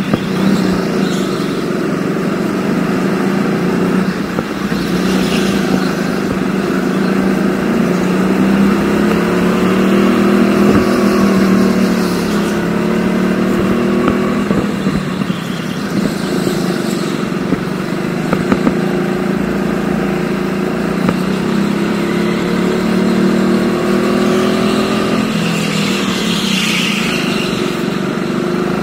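Rental go-kart engine running under load, its pitch rising and falling repeatedly as the throttle is opened and eased through a lap.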